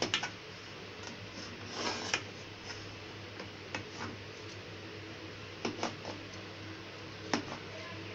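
Knife cutting through a pan of basbousa, with scattered sharp clicks and light scrapes as the blade meets the baking pan, over a low steady hum.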